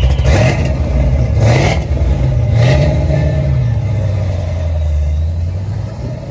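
Ford Mustang GT's V8 exhaust surging twice as the car pulls away, then running steadily and fading as it drives off.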